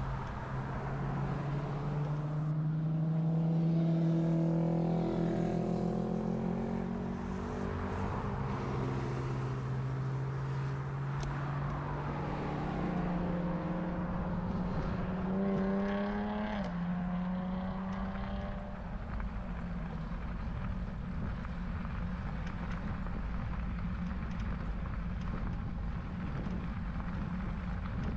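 Motor vehicle engines passing: a steady engine tone for several seconds, then another vehicle rising in pitch and dropping suddenly about 16 seconds in. A steady rushing noise runs underneath.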